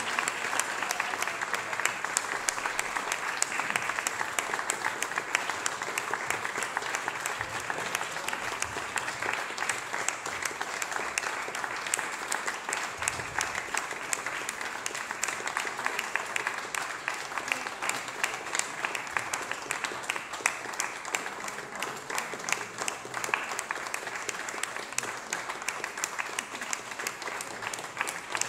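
Concert audience applauding: many hands clapping in a dense, steady patter that runs on without a break.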